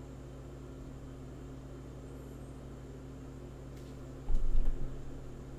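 Steady low electrical hum of a room-mic recording, with a brief low thump about four seconds in.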